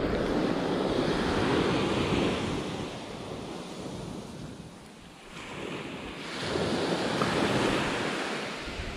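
Small surf waves breaking and washing up a sandy shore: the wash swells loud in the first couple of seconds, ebbs, then swells again a few seconds later. Wind buffets the microphone.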